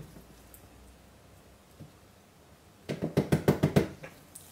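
Plastic pouring jug being knocked rapidly, about nine knocks a second for about a second near the end, to shake thick soap batter out. One lone knock comes before it.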